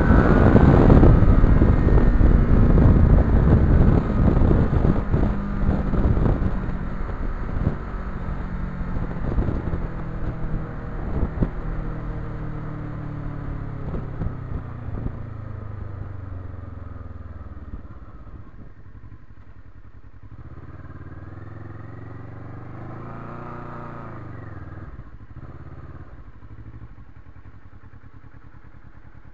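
Motorcycle engine running on the move, with wind buffeting the microphone, loudest at first and easing off as the bike slows. About two-thirds through the engine pitch rises and falls briefly, then it settles to a low steady idle near the end.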